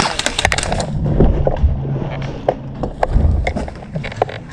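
Rapid airsoft gunfire, a fast run of sharp cracks that stops about a second in, followed by a low rumble and a few scattered single shots.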